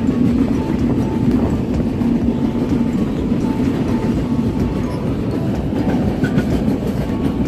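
Moving passenger train running steadily along the track: a continuous, loud noise of wheels and coaches.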